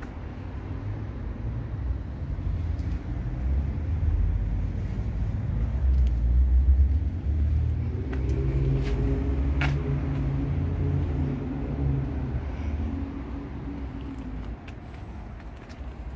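A motor vehicle's engine rumbling low, growing louder over the first several seconds and then fading. There is one sharp click about ten seconds in.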